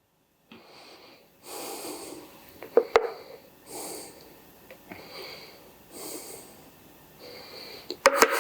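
Gravy being spooned from a pan onto a plate: several soft wet scooping sounds, with a few sharp clinks of the spoon against the pan, loudest just before the end.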